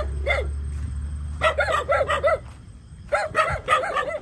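Dogs barking repeatedly in quick runs of short barks, a few at a time, with a steady low hum under the first half.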